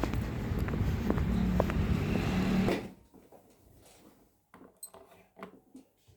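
Steady background rumble with scattered light clicks, which cuts off abruptly about three seconds in to a quiet room with a few soft taps.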